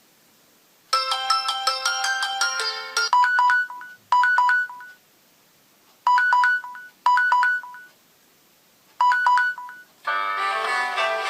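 Samsung Galaxy J1 Ace ringtone playing: a quick run of short electronic notes, then a short two-note figure repeated in pairs with pauses between. Near the end a different, fuller ringtone starts.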